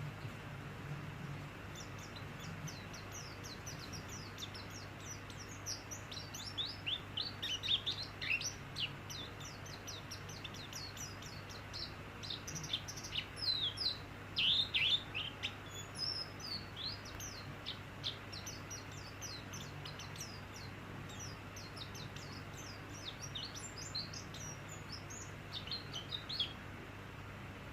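White-eye (pleci) singing a fast, busy run of short high chirps that sweep downward. It starts about two seconds in, is loudest about a third and again about halfway through, and fades near the end, over a steady hiss and low hum.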